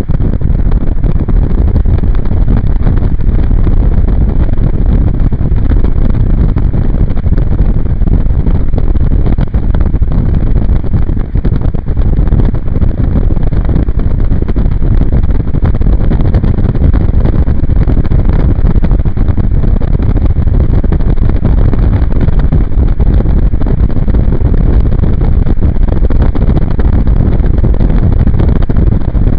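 Wind rushing over a pocket camera's microphone held out of a moving vehicle's window, a loud, steady roar mixed with road and engine noise from the vehicle at cruising speed.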